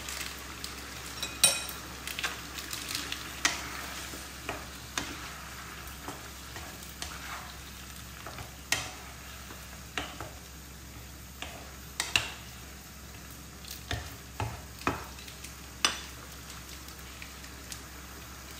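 Mutton and gravy sizzling in a frying pan while a spatula stirs them, with repeated sharp taps and scrapes of the spatula against the pan, roughly one a second.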